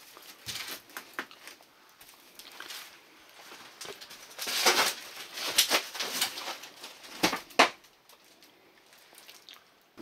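Footsteps scuffing and crunching over debris on an old floor, with rustling and scattered clicks, a louder scuffing stretch near the middle and two sharp knocks soon after.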